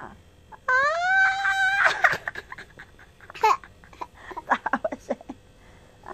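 Baby boy's voice: a long high squeal about a second in, then short bursts of laughter.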